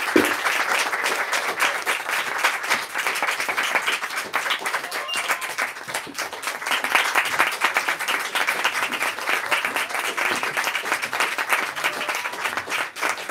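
Audience applauding steadily, a dense clapping of many hands, with a few cheers.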